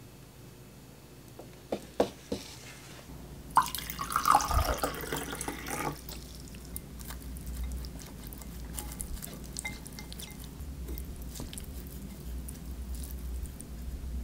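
A squeeze bottle of tonkatsu sauce sputtering as sauce is squirted out, loudest for a couple of seconds in the middle. Then chopsticks toss and mix saucy jjolmyeon noodles in a ceramic bowl, with soft wet squishes and light clicks.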